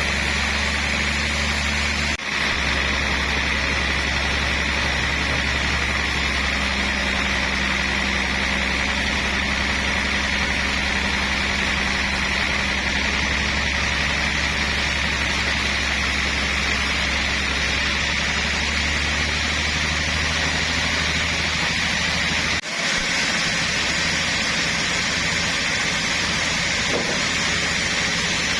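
Sawmill machinery running steadily: a low engine drone with a constant high whine, cutting out for an instant twice.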